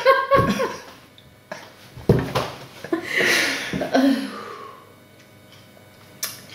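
A man and a woman laughing in short bursts that die down over the first four seconds, then a single sharp click near the end.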